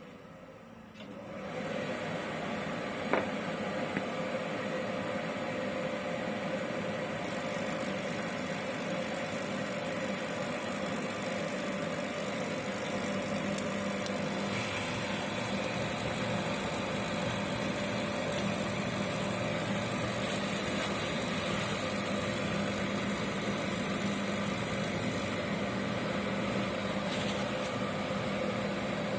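Oil burner of a boiler starting up about a second in and then running steadily, its fan motor and flame making a continuous mechanical noise.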